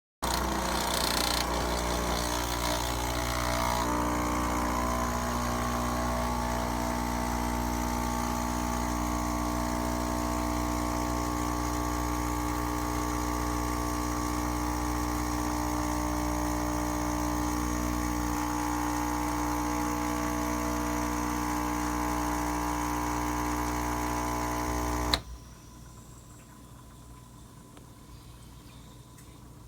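De'Longhi EC155M espresso machine's vibration pump running with a steady buzzing hum, then shutting off abruptly with a click about 25 seconds in.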